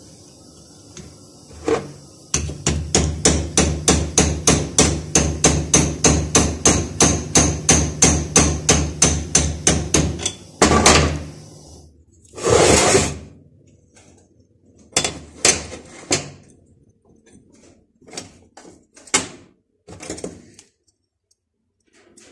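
Rapid, even hammer blows on a metal part held in a bench vise, about four a second for some eight seconds, then a few scattered clicks of hand tools. Under the hammering runs the steady hiss of a camping gas burner, which stops about twelve seconds in.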